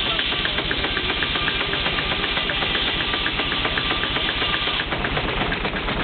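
Case 110 steam traction engine running, belted to a sawmill: a quick, even mechanical ticking over a steady hiss of steam. The ticking drops out near the end.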